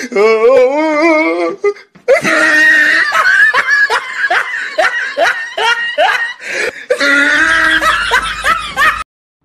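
Loud, hearty laughter in rapid repeated 'ha-ha' pulses, with a brief pause about two seconds in, cutting off abruptly near the end.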